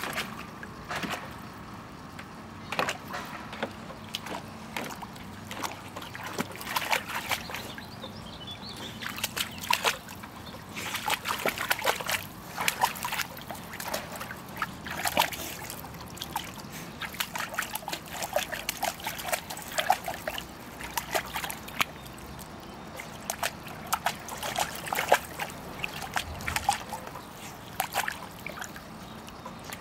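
Water splashing and sloshing in a plastic kiddie pool as a puppy paws and stamps at it with her front feet, in many irregular splashes.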